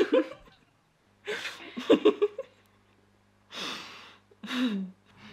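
Soft breathy laughter and sighs from two women in a few short bursts, the last a voiced sigh that falls in pitch. A low, quiet held note of background music comes in about a second in.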